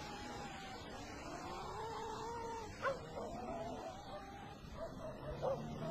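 An animal's long, wavering cries, with a short sharp yelp about three seconds in and another near the end.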